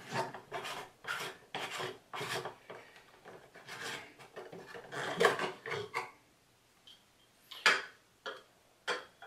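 Threaded plastic cap on the filter housing of an Aqua Ionizer Deluxe 7.0 water ionizer being unscrewed by hand, the plastic threads rasping in short turns about twice a second for some six seconds. Three or four separate clicks follow near the end.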